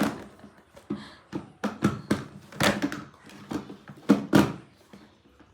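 Irregular knocks and clicks of toy car parts being handled and fitted together during assembly, about a dozen in all, with a pause near the end.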